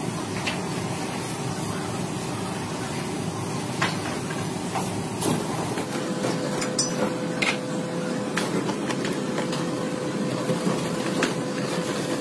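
Workshop machinery running with a steady hum, broken by scattered sharp metallic clicks and knocks; a steady tone joins in about halfway through.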